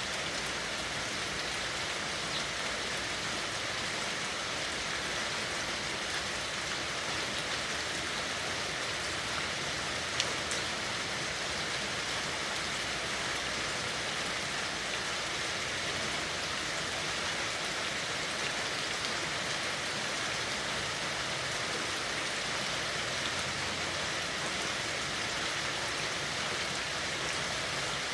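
Steady rain falling in an even, dense patter, with one sharp tick about ten seconds in.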